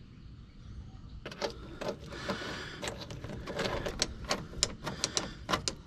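Irregular metallic clicks and rattles of a small metal fitting plate and hardware being handled and test-fitted against a car's firewall. They start about a second in and come thicker toward the end.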